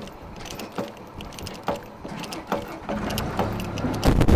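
Ratchet chain binder being cranked to tighten a chain, each stroke of the handle giving a sharp metallic click with a short ring, a little more than one a second. About four seconds in, a much louder clatter begins.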